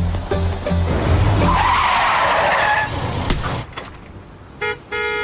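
Music with a steady beat, cut off by a car's tyres skidding for about a second and a half. Near the end a car horn gives a short toot and then a long blast.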